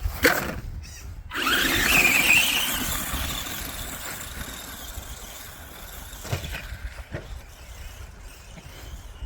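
ARRMA Granite Voltage RC truck's brushed 540 electric motor and gears whining as it takes off under throttle about a second in; the whine rises in pitch, then fades over a few seconds. Two short knocks follow later.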